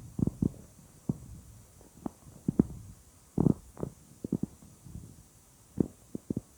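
A person's stomach gurgling: a string of short, irregular gurgles and pops, some in quick clusters, with quiet gaps between.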